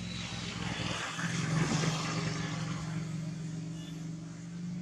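Engine of a passing motor vehicle: a steady low hum with a rushing sound that swells to its loudest about one and a half seconds in, then eases off.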